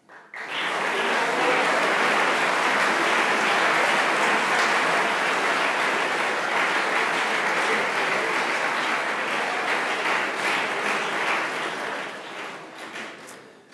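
Audience applauding: the clapping starts right after the recipient's name is called, holds steady, and fades away near the end.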